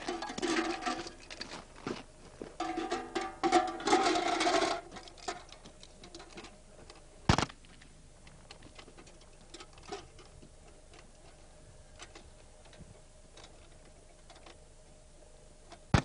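Rapid clicking and rattling from equipment being handled for about five seconds, then one loud sharp knock and a few sparse light clicks.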